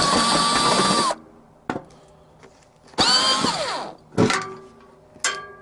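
Cordless drill running in two bursts of about a second each, its motor whine falling in pitch as it spins down after each, with a short blip between. The owner says it sounds like the drill is dying, from a weak battery.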